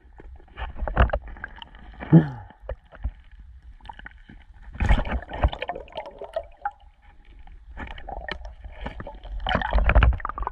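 Underwater sound picked up by a submerged camera: muffled water rushing and bubbling with irregular knocks and bumps as the camera and the speared fish are handled below the surface.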